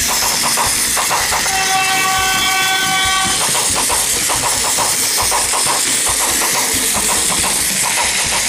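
A Plarail sound car's built-in speaker playing recorded train sounds: rhythmic rail clatter, with a train horn sounding for about two seconds starting roughly a second and a half in. The sound unit works again after repair.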